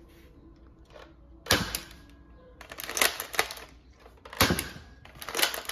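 Buzz Bee Air Warrior Stryker Force toy dart blaster being worked: several groups of sharp plastic clicks and snaps from its priming and firing mechanism, about a second apart.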